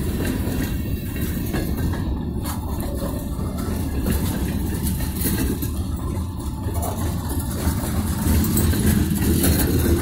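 Covered hopper freight cars rolling past close by: a steady low rumble of wheels on rail, with occasional faint clicks.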